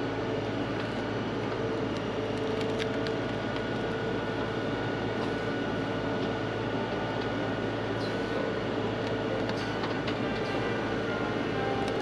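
LS compact tractor's diesel engine running steadily as the backhoe digs, with scattered short clicks and cracks.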